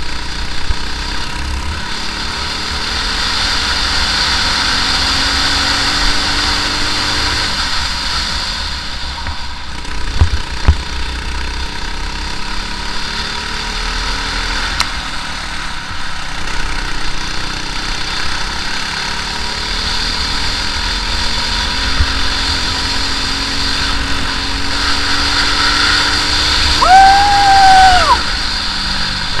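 Briggs & Stratton LO206 single-cylinder four-stroke kart engine running at race speed, its pitch rising and falling as the kart slows for corners and accelerates out of them. There are a couple of sharp knocks about ten seconds in, and near the end a brief high-pitched squeal that rises and falls, the loudest sound.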